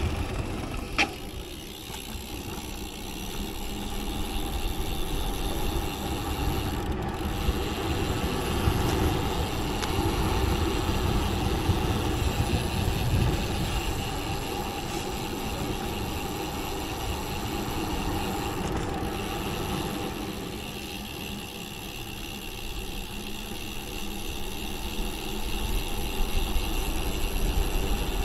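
Wind rushing over the camera's microphone together with tyre noise from a road bike coasting fast downhill, swelling and easing with speed. A single sharp click about a second in.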